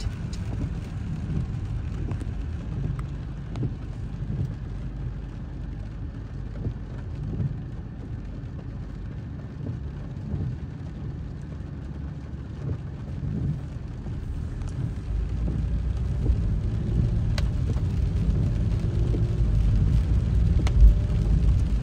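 Car cabin noise in the rain: a steady low engine and road rumble under rain on the windshield, growing louder about two-thirds of the way through as the car moves off. A couple of light knocks near the end.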